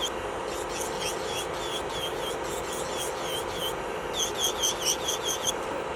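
Electric nail drill (e-file) running at a steady high speed, its bit grinding against the nail in quick repeated strokes that give short squeaky scrapes, a few per second, thickest near the start and again around four to five seconds in.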